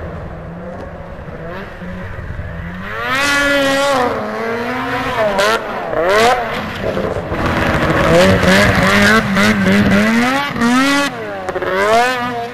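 Ski-Doo MXZ 440 race snowmobile's two-stroke twin engine revving up and down as the throttle is worked over the jumps. The pitch climbs sharply about three seconds in, drops back, rises again and holds high for a couple of seconds, then falls and climbs once more near the end.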